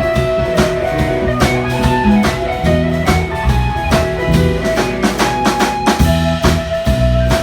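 A band playing with guitar and a drum kit keeping a steady beat; no singing.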